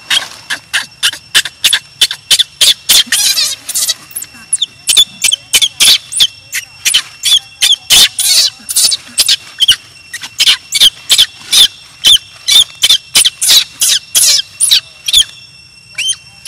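Baby macaque crying: a long run of short, high-pitched squeaky cries, about three a second, pausing briefly near the end. The crying is what the uploader takes for hunger for milk.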